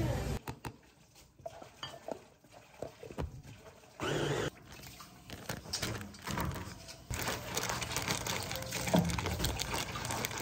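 Minced garlic being spooned out of a plastic food-processor bowl into a zipper bag: scattered scrapes and clicks of the utensil on the plastic, with the bag rustling. The handling gets busier in the second half.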